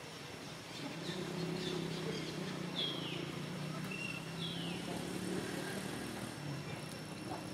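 The low, steady hum of a distant engine comes in about a second in and fades away near the end. Over it are a few short, high chirps that fall in pitch.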